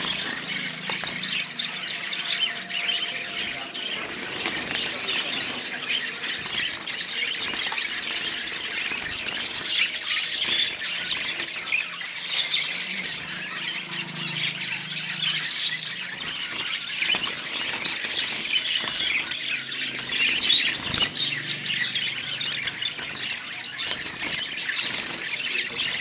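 Caged finches chirping and chattering without a break, many short high calls overlapping.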